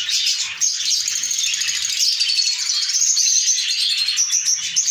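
Dry grass and straw nesting material rustling and crackling as it is pulled by hand out of a wooden parrot nest box, over the steady high chattering of many small parrots.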